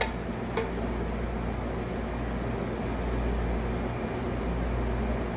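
Steady drone of commercial kitchen ventilation running, with two light clicks in the first second as shrimp are lifted from the frying pan onto the plate.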